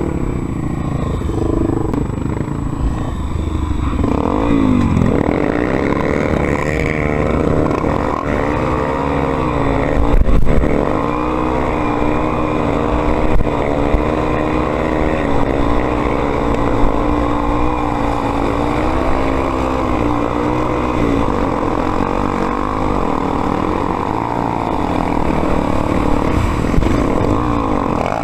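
Dirt bike engine running as it is ridden off-road, its revs rising and falling over and over, with a louder surge about ten seconds in.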